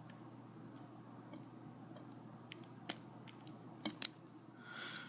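Scattered small clicks of a hook pick working the standard pin tumblers inside a Brinks padlock during picking, with one sharper click about four seconds in.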